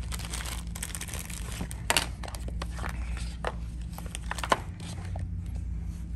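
Thin plastic bag crinkling and rustling as it is pulled open, then a few sharp clicks and taps as a phone and its cardboard box are handled, the loudest about two seconds in and again about four and a half seconds in.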